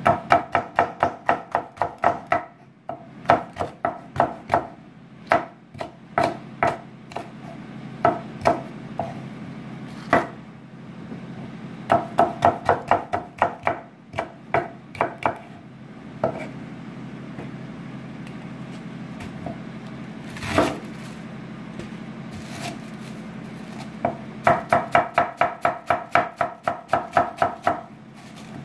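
Chef's knife chopping on a wooden cutting board in quick runs of strokes, about four a second, slicing green bell pepper and then shredding cabbage. There is a long pause in the middle with only a few scattered knocks, over a low steady hum.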